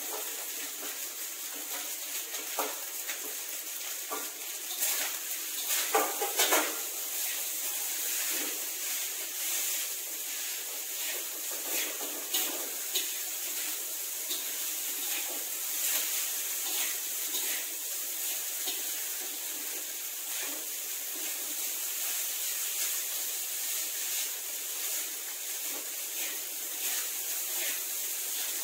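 Fried rice sizzling steadily in a wok while a metal spatula scrapes and clinks against the pan as it is stirred, with a few louder clanks about five to six and a half seconds in.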